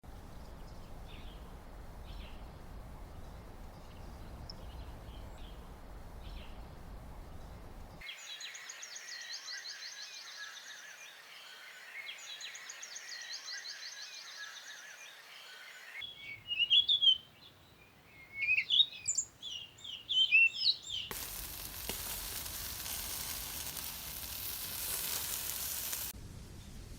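Countryside ambience in abrupt cut-together segments. Faint bird chirps over a low rumble give way to rapid high trilling, then loud bird calls with sliding notes. A steady hiss takes over for about five seconds near the end.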